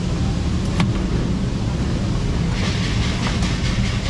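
Steady low rumble of street traffic. About halfway through, a crisp crackling of a banana leaf being handled and cut with a knife.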